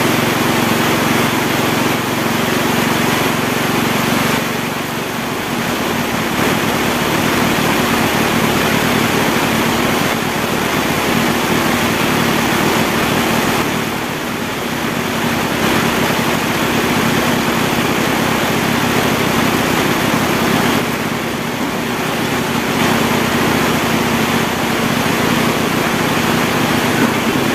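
Heavy tropical rain pouring down steadily as a loud, dense hiss, easing slightly three times, with a steady low hum underneath.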